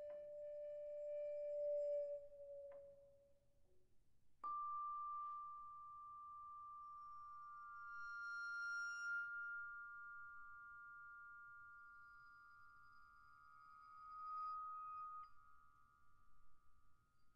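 Solo Yamaha vibraphone, played with a bow and a yarn mallet: soft, long-ringing metal-bar tones. A lower note dies away in the first few seconds, then a higher note enters sharply about four seconds in and a second close note joins it, both holding steadily to the end, with a few faint high chimes around eight seconds in.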